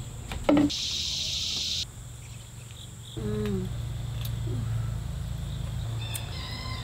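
Insects buzzing outdoors, loudest for about a second near the start, with a short downward-gliding voice-like sound about three seconds in.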